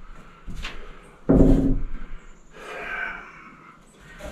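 Knocks and bumps of a wooden 2x4 stud being handled and pushed into place in wall framing, with one loud thump about a second and a half in.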